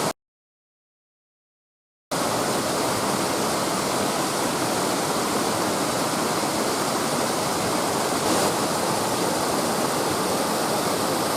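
After about two seconds of dead silence, a steady, even rushing hiss of water.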